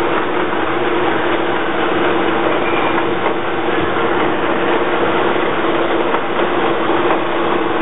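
MEGA TR-30T hydraulic thread rolling machine running, a steady mechanical din with a constant hum under it.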